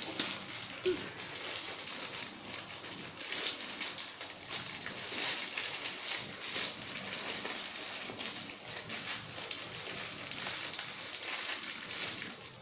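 A small clear plastic bag of screws crinkling and rustling continuously as it is handled and worked open by hand.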